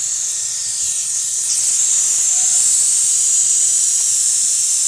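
Steady high-pitched hiss of compressed air from a homemade compressor built from a refrigerator compressor, connected to a tractor tyre through a tyre-inflator chuck. The rig is leaking.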